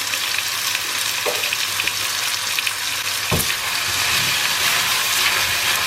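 Chicken pieces and vegetables sizzling in hot oil in a wok as they are stir-fried. A sharp knock about three seconds in, with a fainter one earlier.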